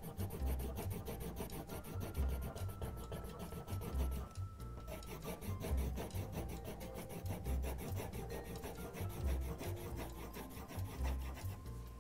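Watercolor pencil scratching across paper in quick, regular back-and-forth hatching strokes, with a brief pause about four and a half seconds in.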